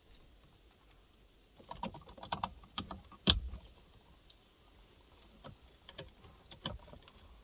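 Plastic wiring-harness plugs being handled and pushed into a car's ECU sockets: a cluster of clicks and rattles starting a little under two seconds in, with one loud click just after three seconds, then scattered single clicks.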